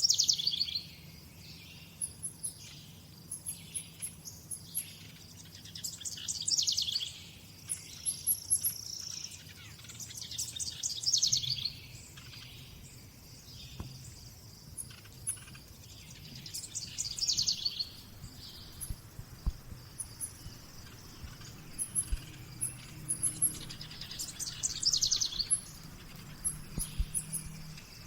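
Songbirds singing: the same short, loud, trilling phrase comes back every few seconds, with faint high chirps in between and a faint low steady hum underneath.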